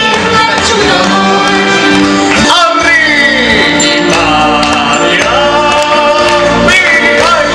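Operetta song: recorded backing music with singing over it, and a man's voice singing after the music breaks off abruptly about two and a half seconds in and a new number begins.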